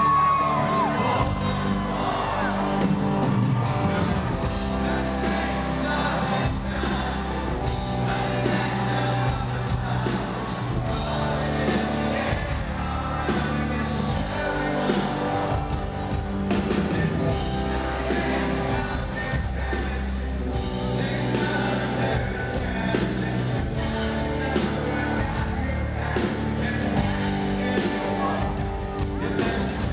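Live country-rock band playing, with a male lead singer over acoustic and electric guitars and drums; a shout or whoop from the crowd near the start.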